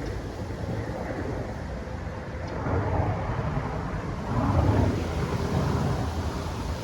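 Rain and wind at night: a steady wash of noise with a deep rumble, the wind swelling in two gusts, about three seconds in and again near five seconds.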